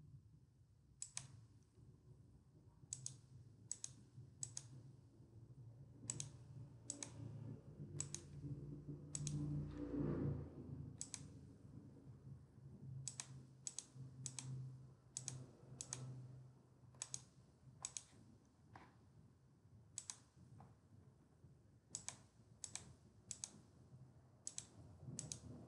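Faint computer mouse clicks at irregular intervals as options are picked from drop-down menus. A low rumble swells and fades about ten seconds in.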